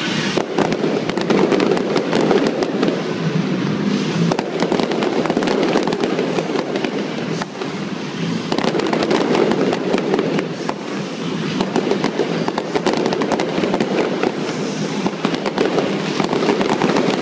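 Aerial fireworks bursting and crackling: a dense, continuous run of sharp pops and bangs from shells and crackling stars.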